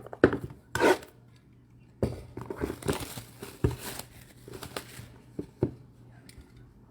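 Trading-card packaging crinkling and tearing as cards are unwrapped and handled, with a few sharp taps in the first second and scattered ticks after.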